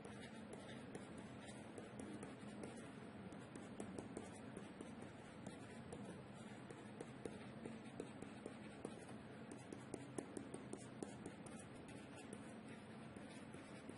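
Faint light tapping and scratching of a stylus writing on a tablet, many small irregular ticks over a steady low hiss.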